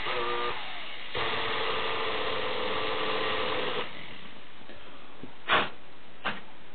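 Small air compressor's brushed electric motor, its damaged commutator poorly repaired, running with a whine that stutters in the first second, then runs steadily before cutting off about four seconds in. Two sharp cracks follow, a loud one and then a smaller one, as the failing commutator arcs and sparks.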